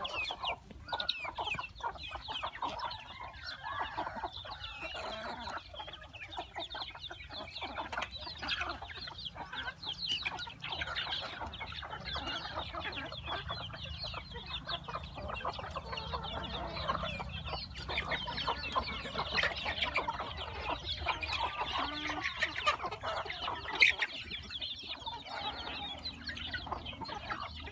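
A flock of young chickens clucking and calling continuously and overlapping while they feed, with one louder call near the end.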